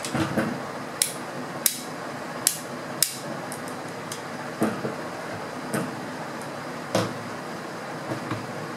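Metal parts of a Hatsan air rifle clicking and knocking as its barrel and compression-tube assembly is handled and set down on a tabletop: four sharp clicks in the first three seconds, then duller knocks about once a second.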